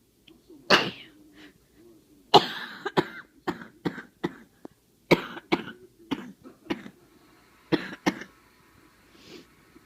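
A person with a chest cold coughing in repeated fits: one cough, then three bouts of several harsh coughs in quick succession, the last a pair near the end.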